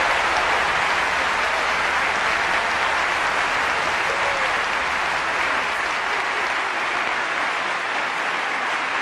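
A large theatre audience applauding steadily at the end of a song, the dense clapping easing slightly toward the end.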